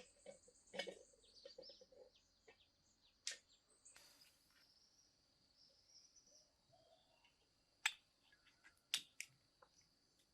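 Near silence broken by scattered sharp clicks and light knocks, the loudest about eight and nine seconds in, over a faint steady high-pitched whine.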